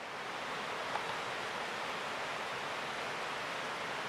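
Water of a shallow, rocky mountain stream rushing steadily.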